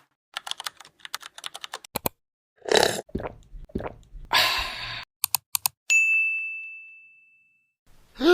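Fidget toys being handled: a run of quick small clicks, two longer scraping or rustling noises, and a few more clicks, then a single ding that rings out and fades over about two seconds.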